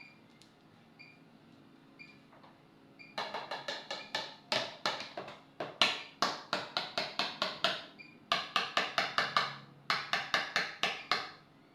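A kitchen utensil knocked repeatedly against a container, most likely to free sticky mashed arrowroot, in three runs of sharp knocks at about three or four a second, the first and longest starting about three seconds in.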